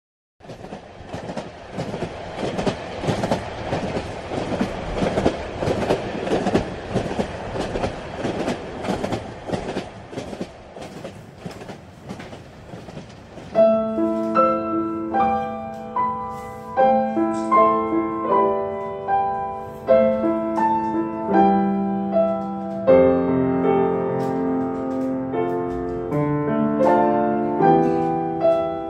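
A train running on rails, wheels clicking over rail joints in quick succession. About halfway through it gives way to a grand piano playing a melody over held bass notes.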